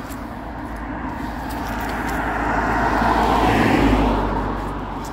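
A car passing close by on the road. Its tyre and engine noise swells to a peak about three to four seconds in, then fades.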